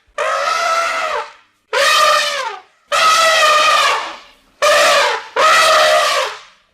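Elephant trumpeting: five loud, brassy blasts in quick succession, each about a second long, several sliding down in pitch as they end.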